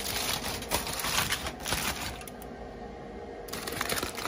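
Aluminium foil crinkling and rustling as a packet wrapped in several layers of foil is pulled open, with many small crackles and clicks. It eases off for about a second past the middle, then crackles again.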